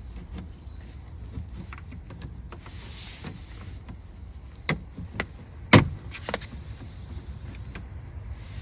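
Hand work inside a car door: a few sharp clacks of tools and door parts being handled, the two loudest about five and six seconds in, over a steady low hum.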